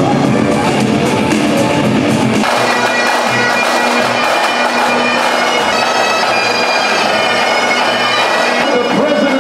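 Loud show music with a heavy low end cuts off about two and a half seconds in. A pipe band takes over: Highland bagpipes droning and playing a tune, with drums.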